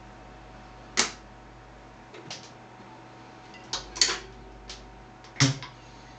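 Sharp clicks and knocks as a 7-inch single is handled and set down over the large centre spindle onto the platter of a Philips AG1016/22 record player. The loudest come about a second in and near the end, the last with a deeper thud as the record meets the platter. A faint steady hum runs underneath.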